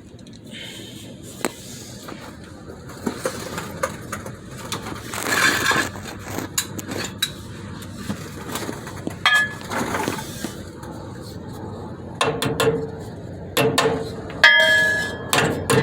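Hammer tapping a steel retaining clip into the slots of a truck's parking brake cable at the frame cross member. The taps are irregular, the first ones light and sparse, then harder strikes near the end that leave a brief metallic ring, the loudest about two-thirds of the way through the last few seconds.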